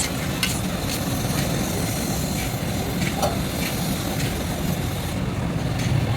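Steady low mechanical rumble with a few light clicks and knocks.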